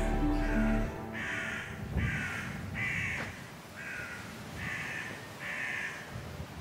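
A crow cawing over and over, about one harsh call every two-thirds of a second, each call dipping slightly in pitch. Soft background music fades out about a second in.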